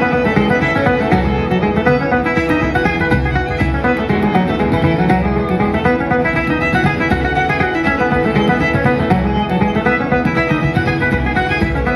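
Irish traditional band playing a fast reel on fiddle, banjo, piano accordion, acoustic guitar and bodhrán, with a steady driving beat under quick running melody notes.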